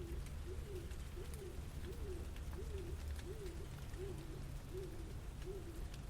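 A pigeon cooing: a low call that rises and falls, repeated evenly about every 0.7 seconds, over a steady low city rumble.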